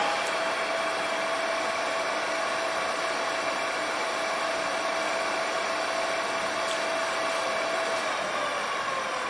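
Mitsubishi radial drilling machine switched on: its motor and spindle gearing start abruptly and run with a steady whine. Near the end the whine begins to fall in pitch.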